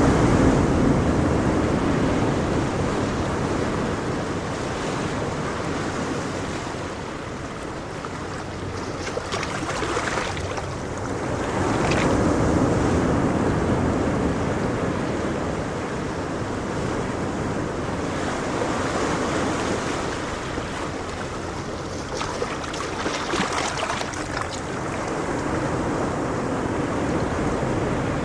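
Ocean waves breaking on the shore, a continuous rushing wash that swells and recedes every few seconds.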